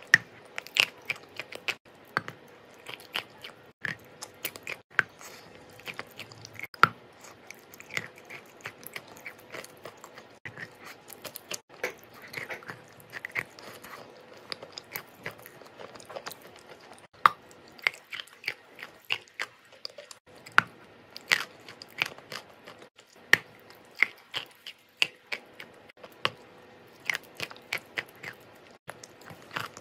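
Close-miked biting and chewing of chalk coated in a thick paste, with frequent sharp crunches as pieces break off between the teeth.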